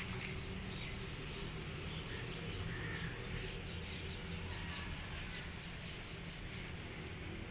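Steady low outdoor background rumble, with faint short high chirps during the first few seconds.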